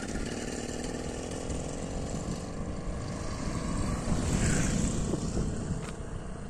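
BT80 two-stroke bicycle engine running as the motorized bicycle is ridden, its note a little louder about four seconds in.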